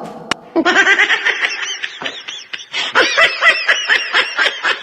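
Monkey-laugh sound effect played from a Kasos T1 live-streaming sound card: a run of rapid, high-pitched chattering calls, several a second, starting about half a second in.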